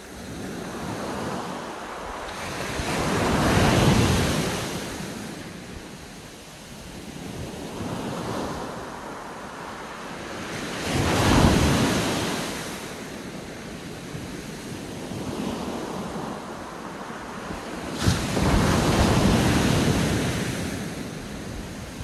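Small sea waves breaking and washing up a sandy beach, the surf swelling three times, roughly seven seconds apart, between quieter wash.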